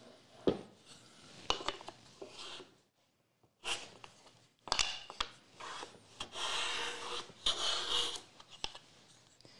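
Hand plane shaving wood on a shooting board: several short scraping strokes, the longest two near the end, with sharp knocks of wood and tool being set down and repositioned between them.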